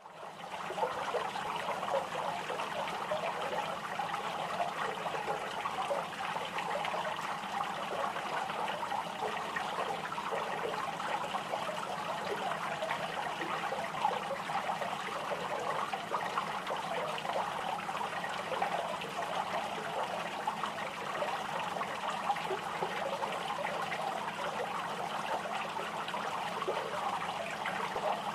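Small fountain's water splashing and trickling steadily, fading in over the first second, with a faint steady low hum underneath.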